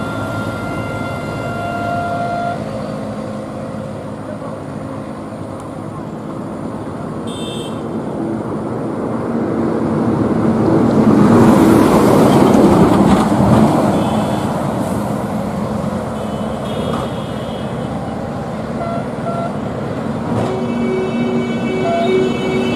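Road traffic on the bridge above: a heavy vehicle passes, its noise swelling to a loud rush in the middle and fading. Near the end a vehicle horn sounds in a long steady tone.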